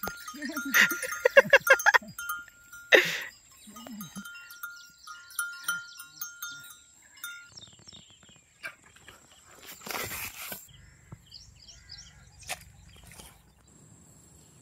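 Goats bleating several times, loudest in the first two seconds, then fainter. Two brief rushes of noise about three and ten seconds in.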